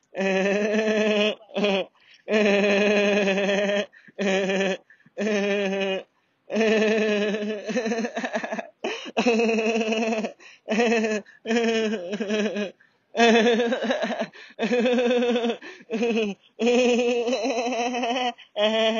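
A man laughing nonstop in long runs of about a second or two, breaking off briefly between them. The laughter is deliberate and put-on.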